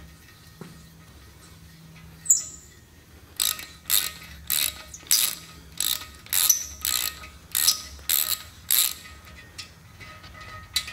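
Hand ratchet with a tap socket clicking in about ten quick passes, roughly two a second, starting a few seconds in after a short high squeak, as it backs a spiral tap out of a freshly threaded head-stud hole.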